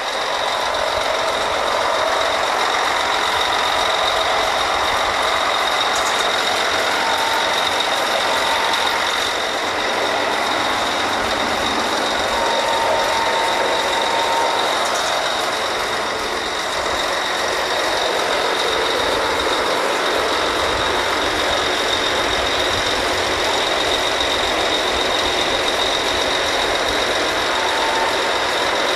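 Drilling rig machinery running: a loud, steady mechanical noise with a constant high whine over it.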